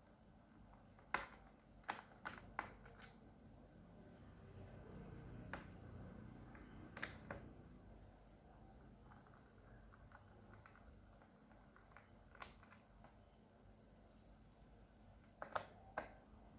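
Scattered small clicks and taps a few seconds apart, with a cluster in the first three seconds and a pair near the end, over a faint background hum. These are the sounds of small screws and a screwdriver being handled on the plastic base of a laptop during disassembly.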